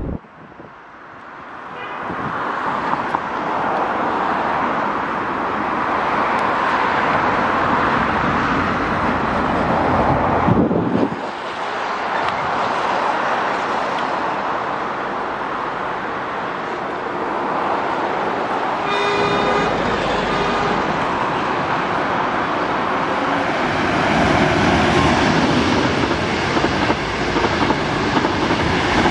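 HXD1D electric locomotive hauling a train of 25K passenger coaches, approaching and passing: a steady rushing rumble that swells over the first few seconds, one horn blast of about a second and a half around two-thirds of the way through, and the coaches rolling by on the rails near the end.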